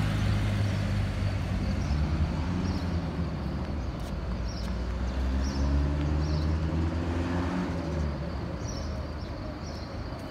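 Road traffic passing: vehicle engines rumbling, including a small white tipper truck driving by at the start, and an engine rising in pitch as a vehicle pulls away around six seconds in.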